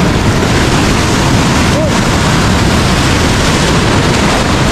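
Ocean surf washing and breaking around a person wading in the shallows, with wind buffeting the microphone. A loud, steady rush of water.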